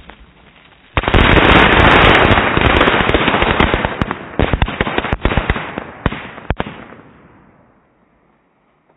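A buried rocket firework going off in the ground: a sudden loud burst of dense noise about a second in, breaking up into scattered sharp pops and cracks and dying away a few seconds later.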